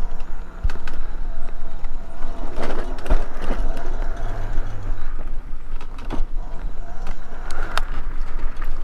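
Electric mobility scooter driving along a sandy trail: a steady motor whine and tyre noise, with scattered sharp knocks and rattles from the bumpy ride.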